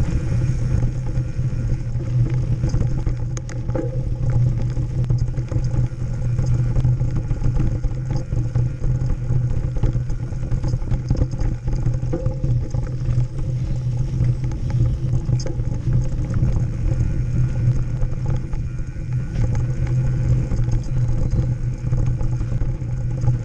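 Mountain bike descending a dirt and rock trail at speed: wind rushing over the handlebar camera and tyres rumbling on the ground, with the bike clattering and rattling over the rough surface.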